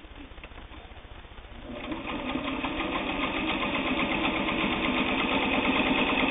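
Singer 301 sewing machine starting up just under two seconds in, then running steadily with a rapid, even stitching rhythm as it sews a seam through cotton sheeting.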